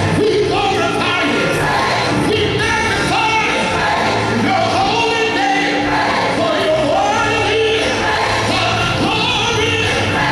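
Live gospel music: a male soloist sings into a microphone over choir and instrumental accompaniment.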